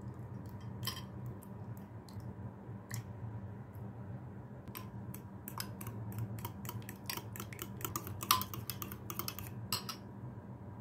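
Metal fork clinking and scraping against a glass bowl while stirring a runny egg and yogurt batter: a few scattered clicks at first, then quick irregular clicks from about five seconds in. A low steady hum lies underneath.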